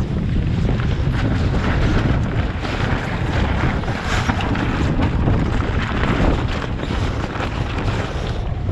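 Wind blowing hard across the microphone, with sailcloth flapping and rustling as a headsail is hauled down and gathered in on a sailboat's foredeck.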